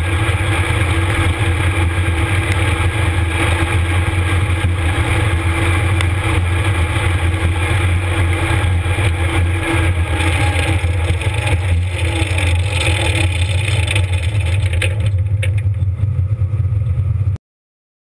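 Combine harvester's corn head running as it gathers standing corn, heard up close from just above the row: a steady, loud mechanical drone with a strong low hum. It cuts off suddenly near the end.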